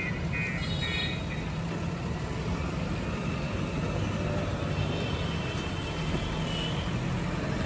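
Diesel engine of a JCB backhoe loader running steadily as the machine drives across the site.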